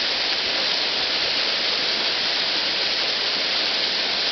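Waterfall pouring steadily: an even rush of falling, splashing water.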